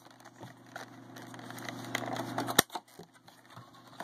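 Clear plastic protector cases for carded diecast cars being handled: light plastic clicks and rustling, with one sharp snap a little past halfway.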